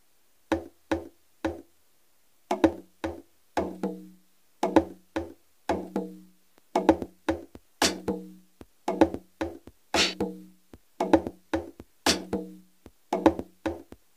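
Amapiano percussion loop from a phone drum-machine app: short pitched conga hits in a syncopated pattern with a kick underneath, starting about half a second in. A sharp snare hit comes in roughly every two seconds.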